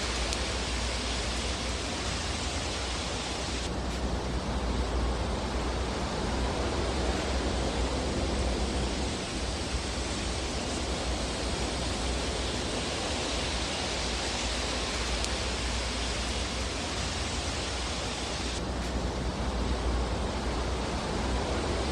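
Fireplace fire ambience: a steady, dense rushing hiss with no distinct crackles or pops. The top of the hiss dulls suddenly about four seconds in and again near the end.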